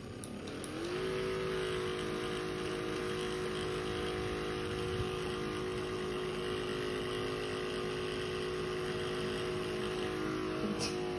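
Handheld percussion massage gun motor spinning up, its whine rising over about the first second, then running steadily with its head pressed against a cockatoo's beak. The pitch dips slightly near the end.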